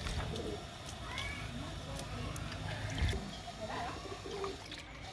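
Birds calling in the background, including short low coo-like notes, over scattered light clicks and a dull knock about three seconds in.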